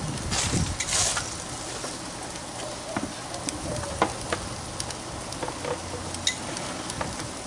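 Chicken sizzling on a charcoal grill grate, a steady frying hiss with scattered pops and crackles, and a few louder bursts of noise in the first second.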